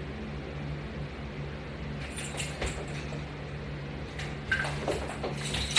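Steady low hum of room noise, with irregular clicks and light knocks starting about two seconds in and coming more often near the end.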